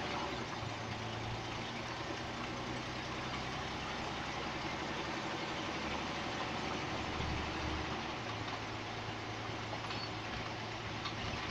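Engine of a Scania OmniCity single-deck bus heard from inside the passenger saloon, running steadily under a haze of cabin noise. Its low hum fades for a few seconds near the middle, then comes back.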